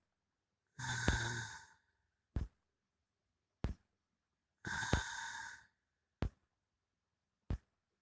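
A person snoring in sleep: two drawn-out rasping breaths of about a second each, roughly four seconds apart, with short sharp puffs in between.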